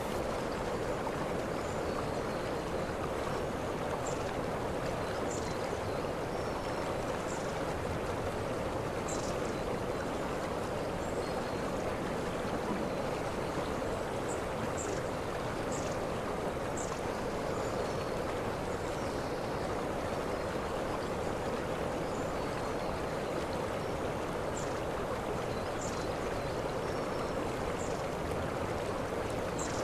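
Waterfall rushing steadily, a continuous even noise of falling water, with faint short high chirps here and there.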